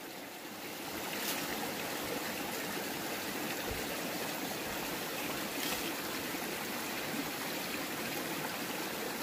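Forest stream flowing over rocks: a steady, even water sound, growing slightly louder about a second in.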